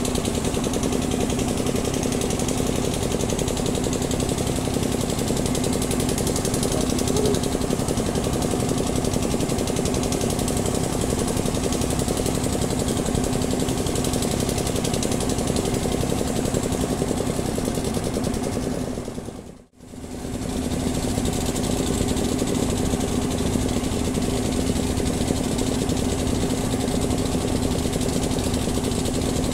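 Steady drone of an unseen engine running, with a constant low hum; the sound fades out and back in briefly about twenty seconds in.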